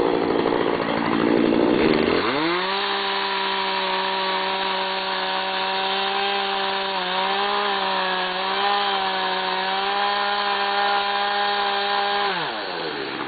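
Two-stroke chainsaw revved up about two seconds in and held at a steady high engine speed with slight wavers for about ten seconds, then dropping back near the end.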